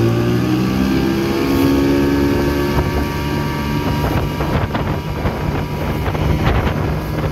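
1984 Evinrude 6 hp two-stroke outboard running steadily at speed, pushing a small boat at about 14 mph. It runs smoothly on a home-made hex-socket drive that replaced its washed-out crankshaft splines.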